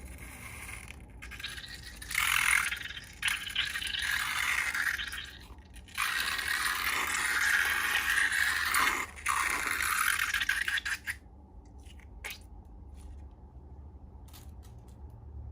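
Slime-making sounds: bursts of scraping and rattling as ingredients are mixed in a bowl, falling away to a few light clicks near the end.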